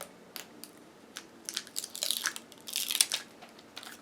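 Plastic crinkling and light clicks from the replacement laptop battery pack and its peeled-off adhesive liner being handled, busiest around the middle.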